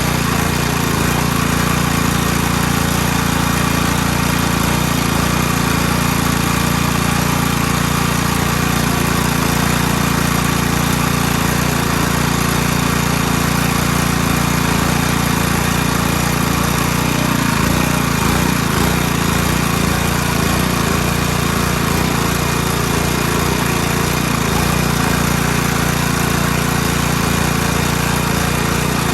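Small gasoline engine running steadily at a constant speed, with no changes in pitch or load.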